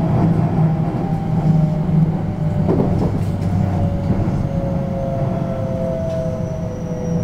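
Interior running sound of a JR West 321 series electric train: a steady rumble of wheels on rail, with the traction motors' whine slowly falling in pitch as the train slows. A brief knock comes about three seconds in.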